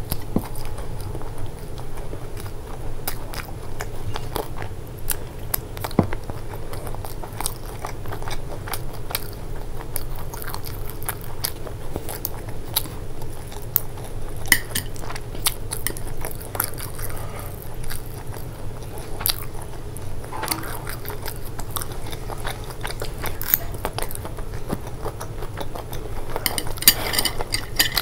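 Chewing and crunchy bites of a deep-fried momo, an irregular stream of crackles and mouth clicks, with occasional clicks of metal chopsticks against the plate. A burst of louder crunching comes near the end.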